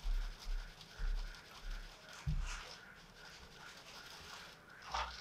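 Rolled oats being shaken out of a plastic jar into a blender jar: faint pattering and scratching, with soft dull knocks in the first couple of seconds.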